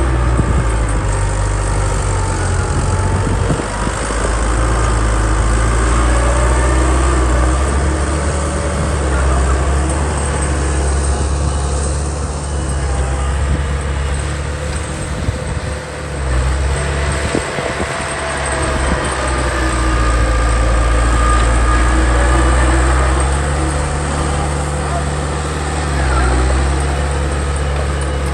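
Heavy diesel engine of earthmoving machinery running with a steady low rumble, its load and pitch shifting now and then.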